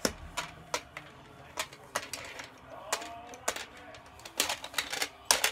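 Plastic puck and player pieces of a tabletop toy hockey game clicking and knocking against each other and the plastic board in quick, irregular sharp clicks, thickest near the end.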